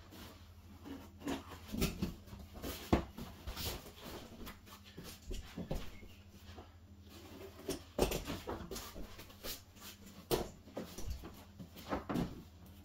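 Rebond foam carpet pad being trimmed with a utility knife along the wall and the cut-off strip pulled away: irregular rustles, scrapes and soft knocks.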